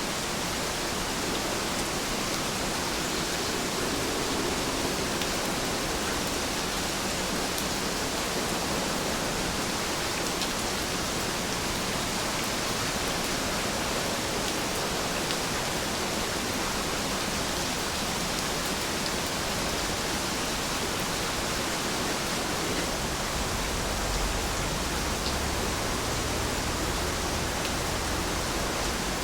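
Steady rain, a dense even hiss of falling drops with no single drops standing out; a faint low rumble joins it about two-thirds of the way through.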